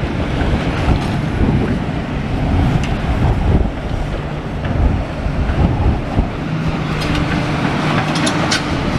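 Heavy wind buffeting the microphone over the running engine of a demolition excavator. A steady low hum comes in about six and a half seconds in, and a few sharp clanks come near the end.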